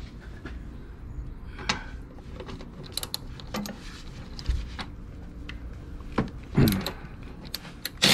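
Tool handling: scattered clicks and knocks as a cordless ratchet's socket and extension are fitted onto a cowl-panel nut, with one louder clunk about six and a half seconds in.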